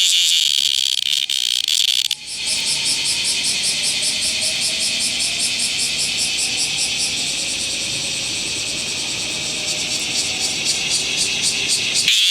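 Bear cicada (Cryptotympana facialis) buzzing loudly in rapid pulses. It breaks off briefly about two seconds in and resumes as a rougher pulsing rattle over a low rustle, then returns to a louder, steadier buzz near the end.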